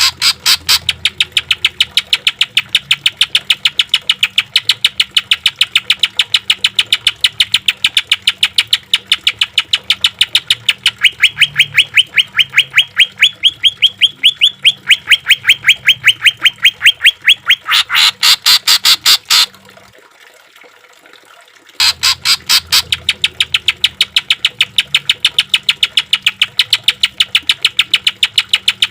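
Greater green leafbird (cucak ijo) rapid-fire song: a long string of sharp, evenly repeated notes, several a second, with a louder, harsher stretch near 18 seconds. It breaks off briefly about 19 seconds in and resumes about 22 seconds in. A faint low hum runs underneath.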